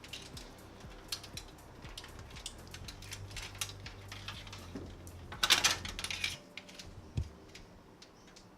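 Small plastic clicks and ticks of front-panel connector cables being handled and routed inside a PC case, with a louder rustling scrape about five and a half seconds in.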